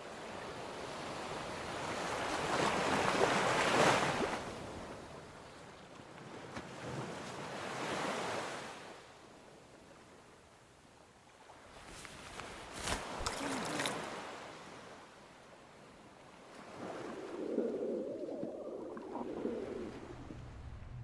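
Waves washing against the shore, rising and falling in slow swells every few seconds, with a few sharp clicks about two-thirds of the way through and a duller swell of noise near the end.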